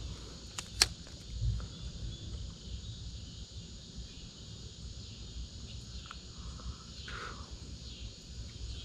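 Insects chirring steadily in a high, even chorus, with a few sharp clicks, the loudest just under a second in, over a low rumble.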